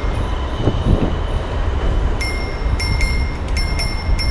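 Wind rumbling on the microphone of a moving bicycle, with bicycle bells ringing in a rapid string of dings over the last two seconds.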